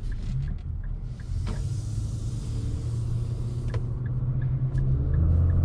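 Inside the cabin of a 2021 Infiniti QX50 (2.0-litre VC-Turbo four-cylinder) under way in eco mode: a steady low engine and road rumble that grows louder about five seconds in as the SUV accelerates. A light, regular ticking repeats about three times a second.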